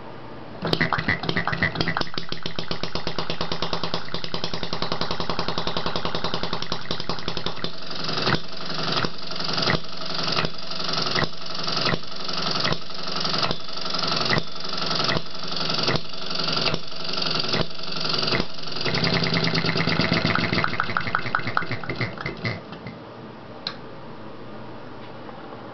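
Small model hit-and-miss engine with a cast-iron cylinder and battery spark ignition, started by spinning the flywheel: it catches suddenly and runs fast with rapid, even firing. For about ten seconds in the middle it settles into a slower, very regular beat of sharp firing pops, about one and a half a second, with the flywheels coasting between them, then speeds up again. Near the end it sputters and stops.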